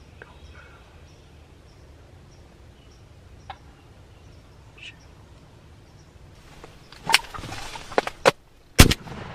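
Quiet waiting with faint bird chirps, then, from about six and a half seconds in, fabric rustling and a few sharp knocks as a shotgun is moved into firing position inside a hunting blind. The loudest knock comes near the end.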